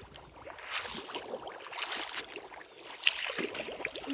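Shallow water sloshing and splashing in short, irregular splashes, with a sharper splash about three seconds in.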